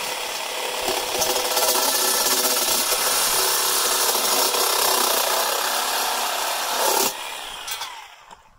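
Reciprocating saw with an all-purpose blade cutting through a metal fence pole: a loud, steady, rough sawing noise. About seven seconds in it drops suddenly as the blade breaks through the pole, then the saw winds down and stops.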